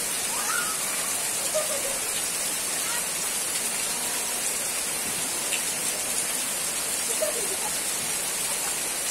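Rain falling steadily on leafy plants and a puddled dirt path, an even, unbroken hiss.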